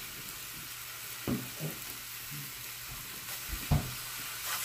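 Fish fillets sizzling in an electric skillet, a steady hiss, with a few short knocks and scrapes of a spatula against the pan as the fillets are turned, the loudest about three and a half seconds in.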